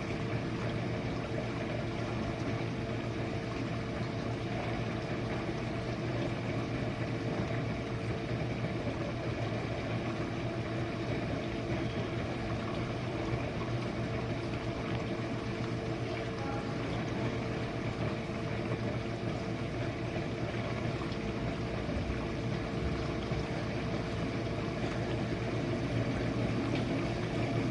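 Jenn Air dishwasher running a wash cycle: a steady motor hum with water spraying and sloshing inside the tub.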